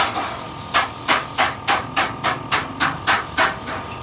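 A hand hammer striking metal in quick, even blows, about three a second, with a metallic ring between strikes; the blows stop shortly before the end.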